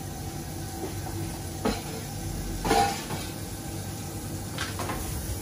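Cauliflower confit in brown butter sizzling gently in a hot frying pan as the butter melts out of it, over a steady background hum. Two short knocks of kitchenware come about one and a half and three seconds in.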